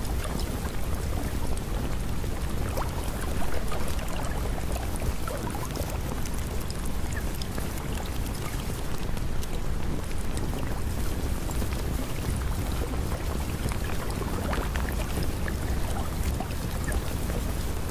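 Steady rain-like water noise with a deep low rumble and scattered faint ticks, holding an even level throughout.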